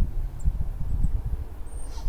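Wind buffeting an action camera's microphone: an uneven low rumble that rises and falls.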